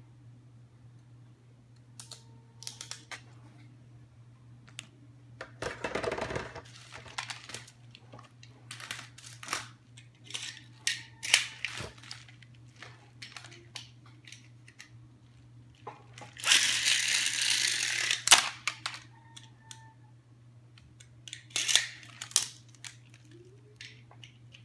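Packaging being handled and opened: scattered clicks and taps with short rustles, and a louder rustle or tear lasting about two seconds about two-thirds of the way through. A steady low hum runs underneath.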